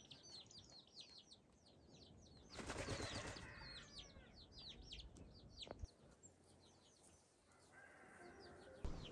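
A domestic pigeon's wings flapping in a brief burst about two and a half seconds in, the loudest sound here, against small birds chirping in quick, high, falling notes that stop about six seconds in.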